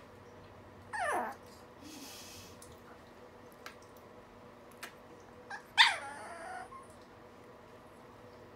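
A small dog whining twice, each a short cry that falls steeply in pitch, about a second in and again, louder, near six seconds. A brief rustle comes between them.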